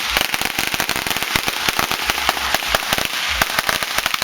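Long firecracker strip going off: a dense, unbroken string of sharp bangs, many a second.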